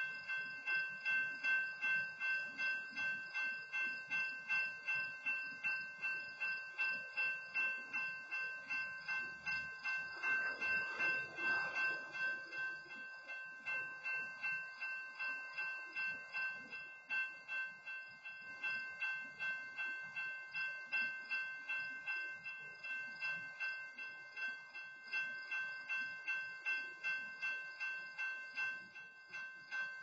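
Railroad grade-crossing warning bell ringing steadily at about two strokes a second: the crossing signals stay active while a stopped freight train blocks the crossing. A brief rushing noise passes about ten seconds in.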